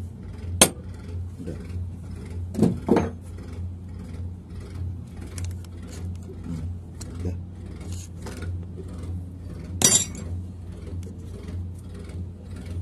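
Metal parts of a Bosch-type fuel injection pump clinking and tapping as it is taken apart by hand: a sharp metallic click about half a second in, a couple of clatters about three seconds in, another near the end, and small ticks between, over a steady low hum.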